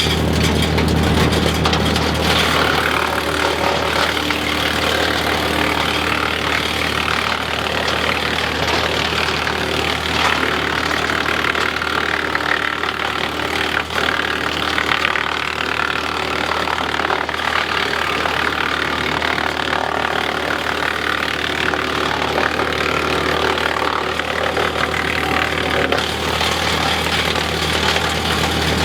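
Tractor engine running steadily under load, driving a PTO wood chipper that is feeding and chipping branches: a constant low engine hum under the chipper's rough, uneven whirring.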